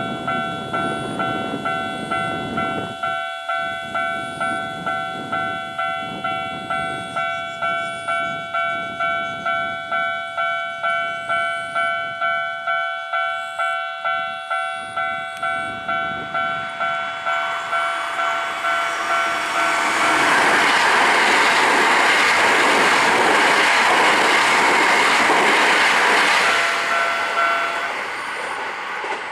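Japanese level-crossing warning bell ringing in even repeated strikes, about two a second. A Hankyu 1300 series electric train then passes through the crossing: its running noise swells to the loudest part for about seven seconds and fades near the end, as the bell stops.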